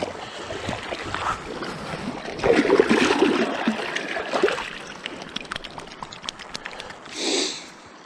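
Shallow river water splashing and sloshing as a released lake sturgeon thrashes away from the hands that held it. The splashing is loudest from about two and a half to four and a half seconds in, then gives way to lighter trickling and dripping.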